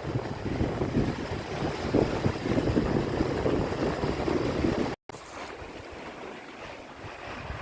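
Wind buffeting the microphone over the rush of ocean waves around a sailing catamaran at sea, loud and gusty. About five seconds in it cuts off abruptly and gives way to a quieter, steadier wash of water.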